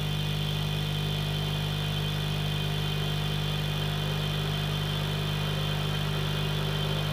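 Steady low electrical hum with a faint hiss from a hot-air heating machine running on the repair bench, with no change in pitch or level.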